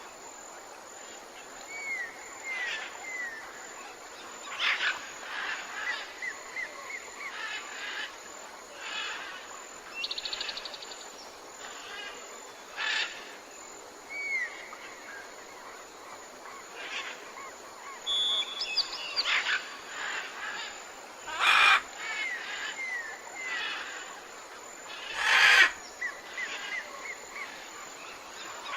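Several birds chirping and calling: a mix of short whistled notes, quick repeated chirps and trills over a faint steady hiss, with two louder, harsher calls in the last third.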